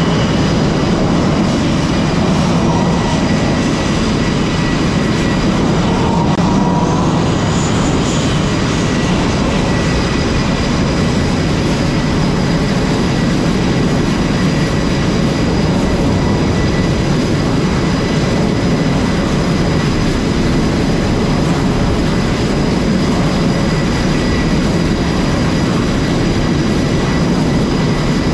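F/A-18 jet engines running steadily: a loud, even rush of noise with several steady, high whine tones over it.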